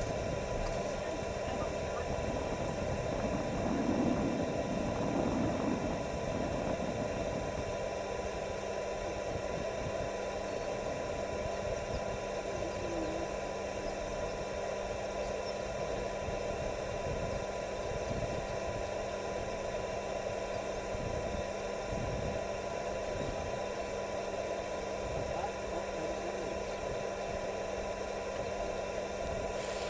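A vehicle's steady running hum with a constant hiss, swelling slightly about four to six seconds in.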